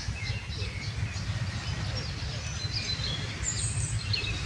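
Birds giving short chirps and calls, scattered throughout, over a steady low rumble.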